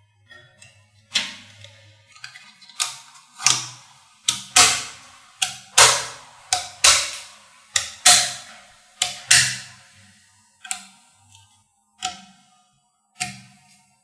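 Small neodymium magnet balls clacking as rows and blocks of them snap together and onto a magnetic-ball model: about fifteen sharp metallic clicks at irregular intervals, loudest and most frequent in the middle.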